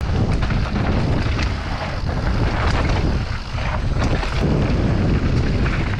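Wind buffeting the microphone of a bike-mounted action camera as a mountain bike descends a dirt forest trail, a loud steady rumble with tyre noise on the dirt and frequent short knocks and rattles from the bike over bumps.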